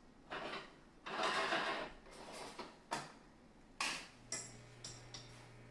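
Metal tongs scraping and clicking against a skillet as penne is tossed in a sauce: a few short scraping passes, then sharp clicks spaced about half a second apart. A low steady hum sets in about four seconds in.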